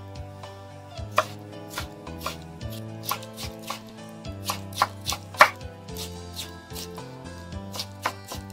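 Kitchen knife chopping soft candied ginger on a wooden cutting board: irregular knocks of the blade against the board, about two to three a second, starting about a second in, the loudest about five seconds in. Background music plays underneath.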